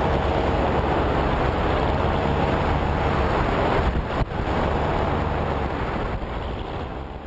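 Wind rushing over the microphone of a flying flex-wing microlight, with the steady drone of its engine and propeller underneath. There is a brief break about four seconds in, and it fades near the end.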